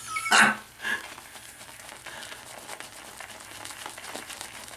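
Wet shaving brush swirled in circles on a ball of shaving soap, giving a steady soft wet crackling as the lather builds. A short loud cry about half a second in.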